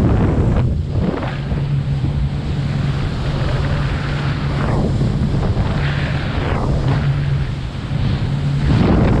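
Wind buffeting the microphone over a boat's motor running with a steady low hum, with the sea washing around the hull.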